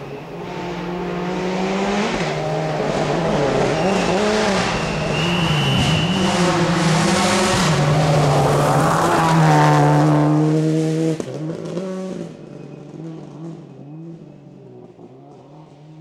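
Peugeot Cosworth rally car's engine revving hard, its pitch rising and falling again and again with throttle and gear changes as it draws closer. It is loudest about ten seconds in, then drops away and fades into the distance.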